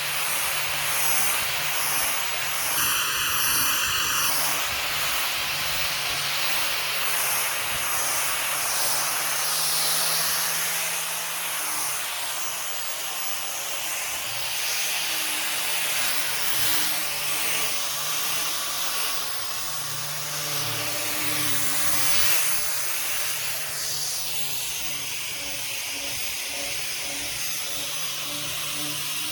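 Electric orbital sander running on a wooden table top: a steady hissing whir over a low motor hum, swelling and easing a little as it is worked across the surface. A brief pitched tone sounds about three seconds in.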